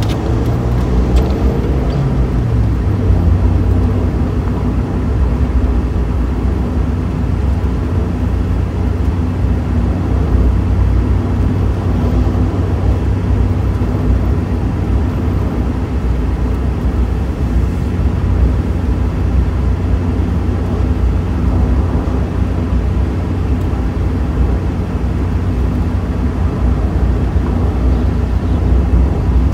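Inside a Mazda Miata driving with the top down: a steady low rumble of wind buffeting the microphone and road noise, with the car's four-cylinder engine running underneath. About a second in, a tone rises briefly.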